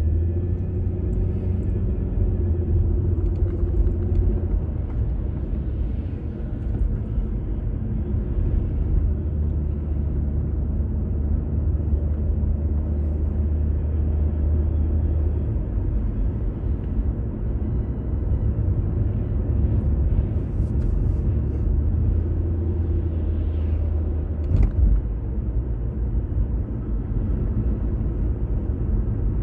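Car engine and road noise heard from inside the cabin while driving: a steady low rumble, with a brief knock about three-quarters of the way through.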